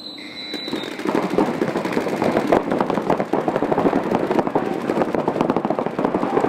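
Many paintball markers firing rapid strings of shots at once, a dense crackle of pops that starts about a second in, after a brief high steady tone at the very start.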